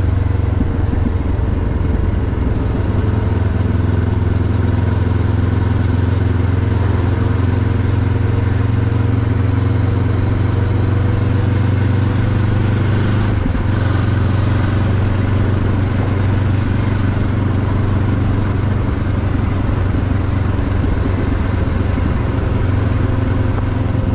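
QJ Motor SRT 700's parallel-twin engine running steadily while the motorcycle cruises at about 60 km/h, heard from the rider's seat with wind and road noise. There is one brief break in the engine note about halfway through.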